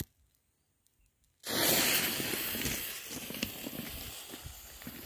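The fuse of a small 9-shot 200-gram firework cake spitting and hissing after being lit. The hiss starts suddenly about a second and a half in and slowly fades, with footsteps crunching on railway ballast.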